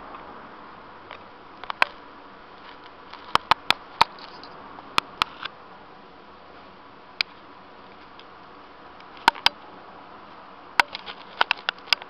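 Model train running on its track: a steady buzz from the locomotive's small electric motor, with irregular sharp clicks from the wheels and track.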